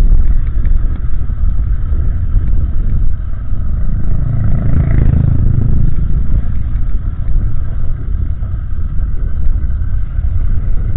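Honda CG 160 Titan's single-cylinder engine running through an aftermarket exhaust tuned to sound like a BMW G 310 while riding, with the sound swelling briefly about four to six seconds in.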